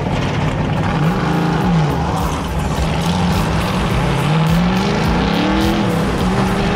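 The 1969 Z28 Camaro's 540-cubic-inch Donovan aluminum big-block V8, straight-piped, accelerating on the street. The revs climb and drop quickly about a second in, then climb steadily for a couple of seconds and drop again near the end as it shifts up.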